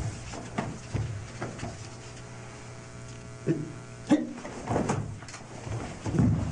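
Karate one-step sparring exchange: sharp snaps of the cotton gi and thumps of feet on the floor, with a few short shouts, over a steady low hum. The loudest snap comes about four seconds in.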